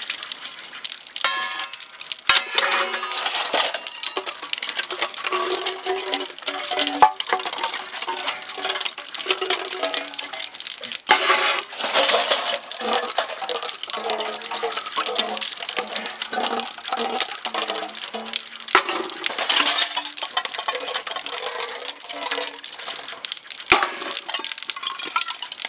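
Dishes and utensils clinking and clattering, with many sharp clicks and short ringing notes throughout.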